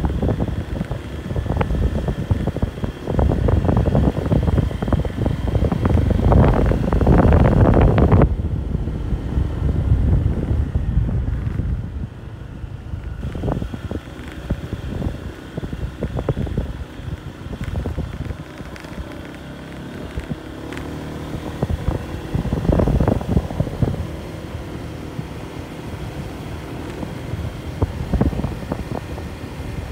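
Wind buffeting the microphone on a moving motorcycle, with the engine running underneath. The rumble is heaviest for the first eight seconds, eases off, and swells again about two-thirds of the way through.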